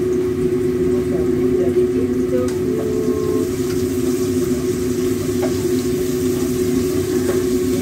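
A steady mechanical hum, with food sizzling in a wok as it is stir-fried and a few light spatula clicks.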